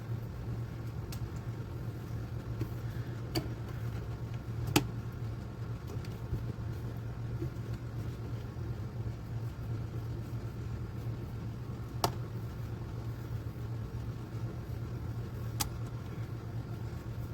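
A steady low hum with a few short, sharp clicks scattered through it, the loudest about five seconds in and about twelve seconds in.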